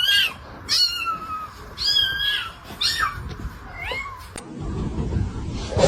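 A cat meowing over and over in short, high-pitched calls, about one a second, four or five times. After that a low rumbling noise follows for the last second or so.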